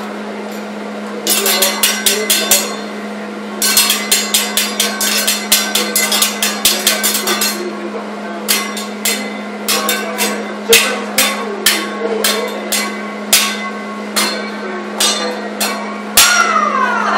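Hibachi chef's metal spatula and knife clacking against the steel teppanyaki grill in rapid rhythmic runs of sharp clicks, then in more spaced strikes. One loud clang near the end rings with a falling tone. A steady hum runs underneath.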